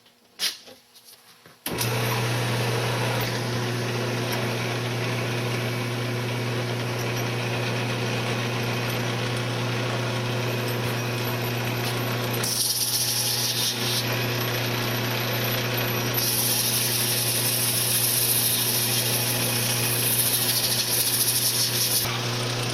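A few clicks, then a wood lathe switches on abruptly and runs with a steady motor hum. Sandpaper is held against the spinning wooden frame blank, a hiss that gets louder in two stretches in the second half as the piece is sanded through the grits.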